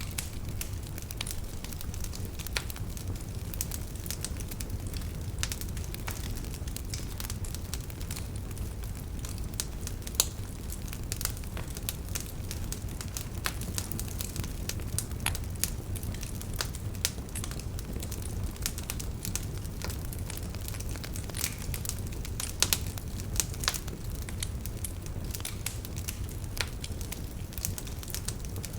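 Wood fire burning in a fireplace: a steady low rumble and hiss with frequent sharp crackles and pops, a few louder snaps standing out.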